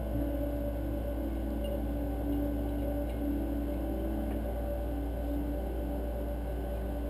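Steady low hum with faint wavering tones over it and a few faint ticks.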